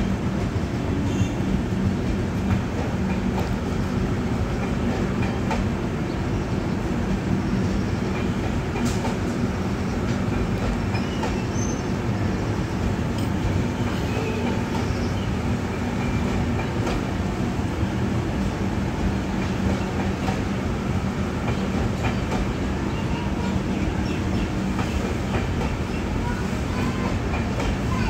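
LHB air-conditioned passenger coaches rolling past on the track: a steady rumble of wheels on rail, with scattered clicks over the rail joints.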